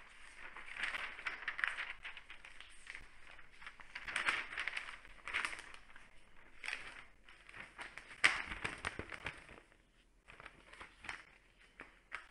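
Newsprint rustling and crackling as a newspaper's large pages are turned and folded by hand, in several bursts, the loudest about eight seconds in.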